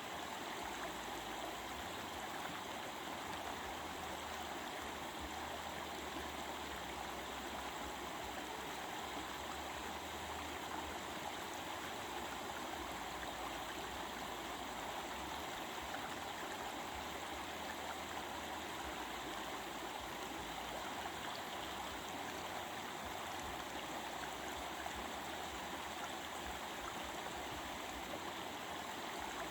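Stream water flowing and babbling in a steady, even rush.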